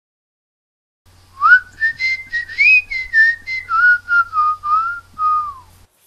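A person whistling a short tune of about a dozen notes that slide into one another, ending on a falling glide.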